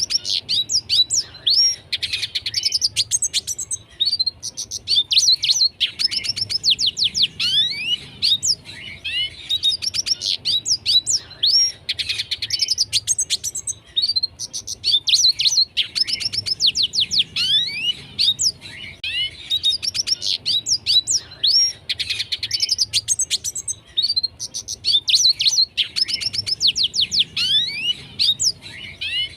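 Red siskin singing continuously: a rapid, twittering jumble of chirps, trills and quick downward-sweeping notes, in long phrases broken by brief pauses every few seconds.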